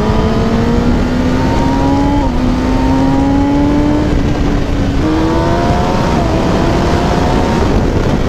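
Kawasaki ZX-10R inline-four sportbike engine accelerating under the rider, its pitch climbing slowly with a few short dips as it pulls, over heavy rushing wind noise.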